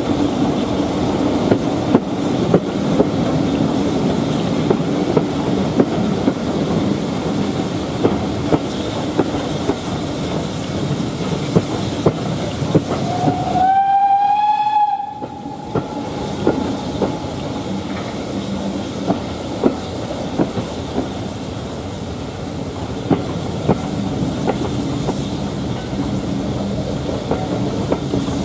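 Train running, its wheels clicking over rail joints in a steady rhythm behind BR 9F 2-10-0 steam locomotive No.92214. About halfway through there is a single blast of about two seconds on the locomotive's steam whistle. It starts slightly flat and rises to a steady pitch.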